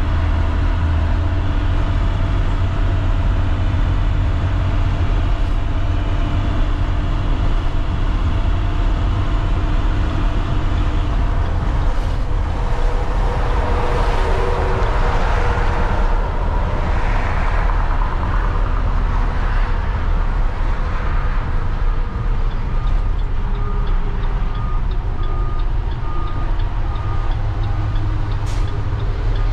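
MaxxForce DT inline-six diesel of an IC CE school bus running steadily at highway cruise, heard from the driver's seat over road noise. A rush of noise swells and fades about halfway through, and a turn signal ticks regularly in the last third as the bus heads onto an exit ramp.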